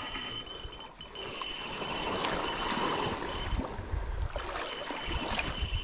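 Spinning reel being cranked in bursts of a second or two while a hooked fish is fought, its gears giving a steady whirring whine that stops in the pauses between turns. Low rumble and handling noise sit underneath.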